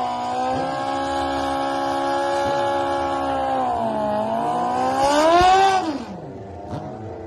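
Sport motorcycle engine held at steady high revs, dipping briefly, then revved up sharply about five seconds in and dropping off just before six seconds.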